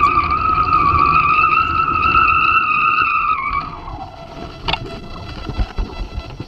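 Kitefoil hydrofoil singing: a loud steady high whistle from the foil cutting through the water at speed, over low wind rumble on the microphone. About three and a half seconds in the whistle drops in pitch and dies away as the board comes down off the foil into the water, leaving quieter water and wind noise with a sharp click.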